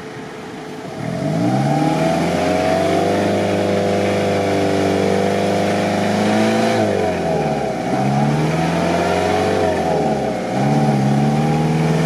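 Toyota Land Cruiser 70's engine revving hard as the truck is winched through deep mud ruts. The revs rise about a second in and hold high, then drop and climb again twice near the end.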